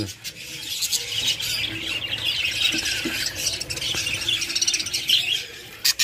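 Budgerigar chicks chattering and squawking in a clay nest pot, a dense run of high chirps.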